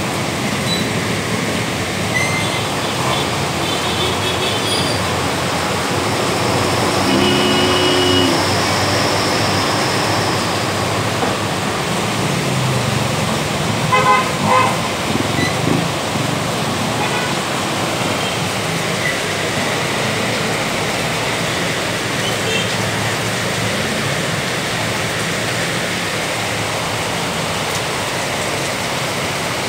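Steady road traffic noise, with a vehicle horn sounding for about a second some seven seconds in and a few sharp knocks around fourteen to sixteen seconds in.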